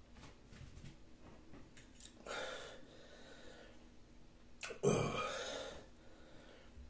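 A man breathing out hard twice after downing a shot of vodka, the second breath louder and throatier, about five seconds in. There are faint clicks early on.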